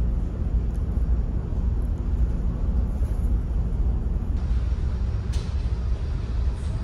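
Steady low rumble of the ferry Shimanto's engines, heard from inside the ship.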